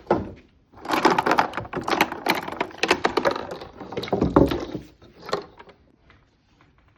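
Dense, irregular clattering and rattling of tools and test equipment being handled for about four seconds, followed by a single knock.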